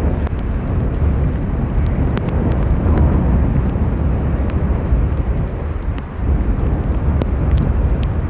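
Jet engine noise from an ANA Boeing 787-8 airliner mixed with heavy wind buffeting the microphone, a dense rumble with scattered small clicks.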